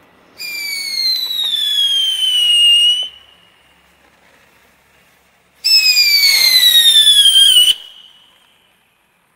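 Half Ton novelty ground firework letting out two loud whistles a few seconds apart, each a shriek of about two seconds that falls steadily in pitch. The second whistle flutters rapidly. A faint hiss of burning sparks runs between them.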